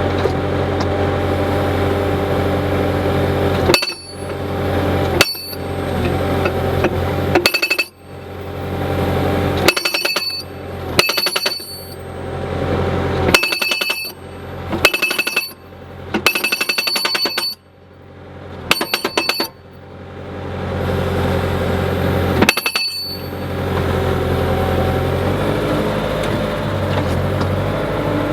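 Eterra PD-550T breaker-style hydraulic post driver on a running skid steer, hammering in about a dozen short bursts of rapid blows, each with a metallic ring. The engine runs steadily underneath and swells between the bursts.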